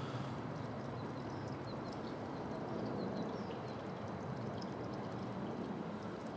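Steady rumbling background noise with several faint, short, high chirps between about one and a half and three and a half seconds in.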